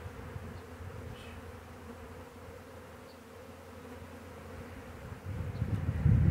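Honey bee swarm buzzing steadily around an open hive box, the bees airborne after being shaken out of a swarm trap during installation. A louder low rumble builds near the end.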